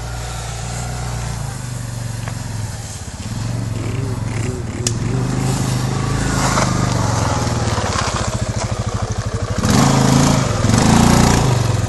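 CFMoto 500 4x4 quad's single-cylinder engine running on a trail, its revs rising and falling, and louder for a moment near the end.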